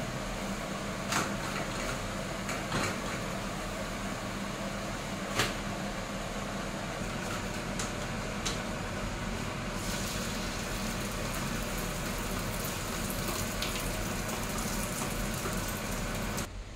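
Steady hiss of a gas stove burner and food cooking on a hot griddle, with three sharp clicks of a spatula against the pan in the first six seconds.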